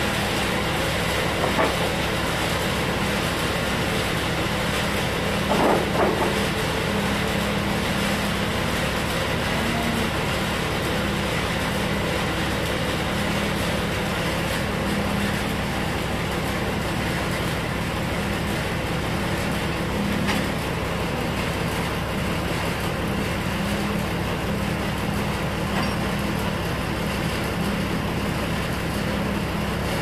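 Band sawmill running steadily with a constant low hum, and a couple of brief knocks about one and a half and six seconds in.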